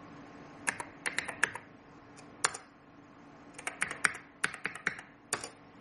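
Keystrokes on a computer keyboard, a run of quick key clicks, a single sharp press about two and a half seconds in, then a longer run of clicks: typing the login name 'root' and then the password at a Linux console login.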